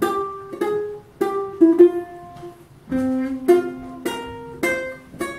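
Ukulele played solo: a slow tune of single plucked notes, about two a second, each ringing briefly and fading.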